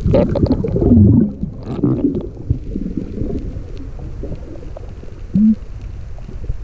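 Underwater sound of a diver swimming over a reef: muffled water rushing and gurgling bubbles, loudest in the first two seconds, with a short bubbly blip about five seconds in.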